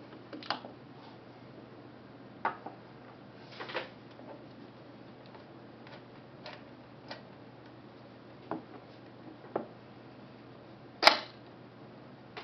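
A KMZ Zorki 4 35mm rangefinder camera body being worked by hand: about eight separate small mechanical clicks from its controls, spaced one to two seconds apart. The loudest and sharpest click comes near the end.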